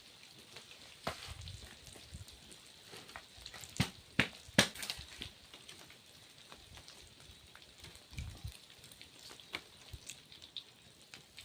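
Birds frying in hot cooking oil: a faint steady sizzle with scattered crackling pops, three sharper ones close together about four seconds in.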